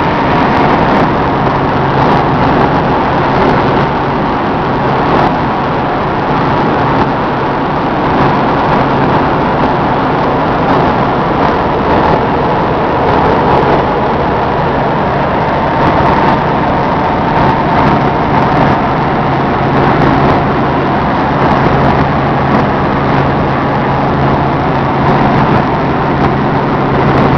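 Helicopter in flight heard from inside the cabin: loud, steady engine and rotor noise with a low hum and a faint high whine that hold constant throughout.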